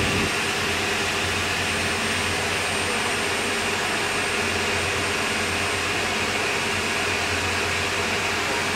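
Tour boat's engine running steadily under way: an even drone with a constant rushing hiss over it.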